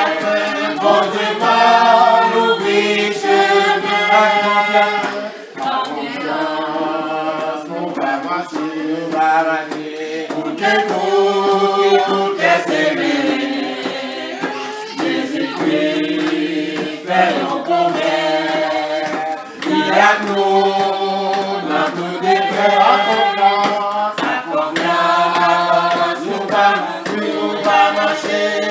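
A small group of men and women singing together a cappella, phrase after phrase, with brief breaks between phrases.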